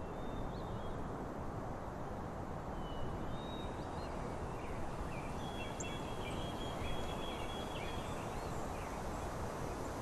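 Natural outdoor ambience: a steady rushing background with thin, high bird chirps and whistles scattered through it, one held note lasting a few seconds past the middle.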